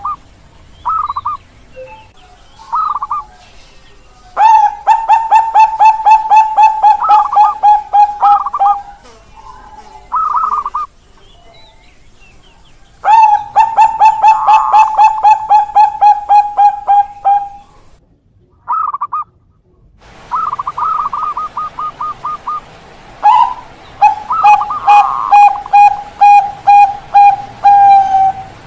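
Zebra doves of the Bangkok contest line (perkutut bangkok) cooing: three long runs of rapid, evenly pulsed coos, about five a second, with short, higher trilled phrases between them.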